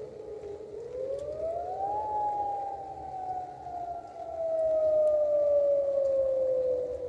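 Dam emergency warning siren wailing during a scheduled test. Its single tone dips low, rises quickly about a second in, then slowly falls again, swelling louder past the middle.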